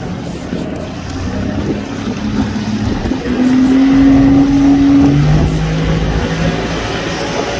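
Motorboat engine running over a rush of noise, getting louder about three and a half seconds in, its tone stepping down to a lower pitch about five seconds in.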